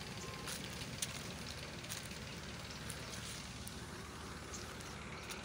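Faint, steady running of a tractor engine powering the tanker's spray pump, with scattered light crackles.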